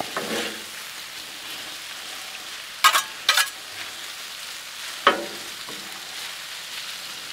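Sliced steak, peppers and onions sizzling on a Blackstone flat-top griddle, with a steady frying hiss. Metal spatulas clack and scrape against the steel cooktop as the food is stirred: two sharp clacks in quick succession about three seconds in, and another about five seconds in.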